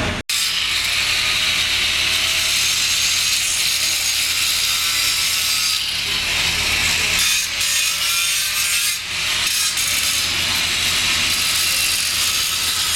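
Angle grinder grinding down the weld on a 2-inch steel pipe joint, the pass being smoothed before the cap pass. It is a steady, loud, hissing grind with a faint wavering whine. It breaks off for an instant just after the start.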